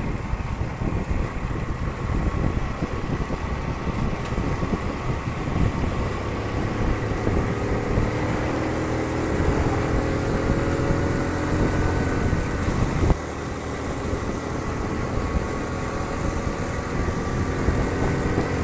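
Honda Super Cub 50's small single-cylinder four-stroke engine running on the move, with steady wind rumble on the microphone. The engine note climbs slowly, then drops suddenly about thirteen seconds in.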